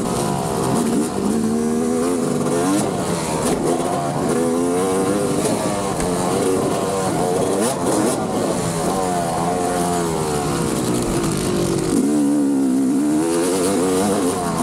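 Motocross dirt bike engines revving, their pitch climbing and dropping again and again as the bikes accelerate and shift.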